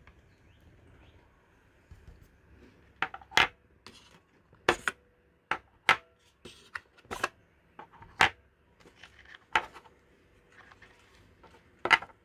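Hard plastic clicks and taps, about ten of them at irregular intervals, the loudest near the end. They come from DJI Osmo Action 4 Extreme batteries being pulled from their charging case and set down on a wooden table.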